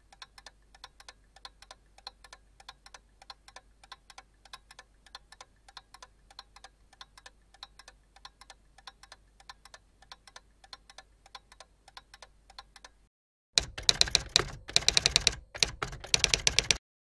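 Typewriter keystroke sound effect: faint, evenly spaced clicks for most of the time, then about three seconds of loud, rapid key clatter that stops just before the end.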